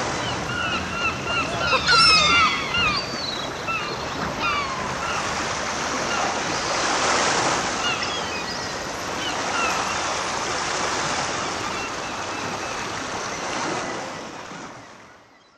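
Sea surf washing on a beach, with gulls calling over it, most busily in the first half; the sound fades out near the end.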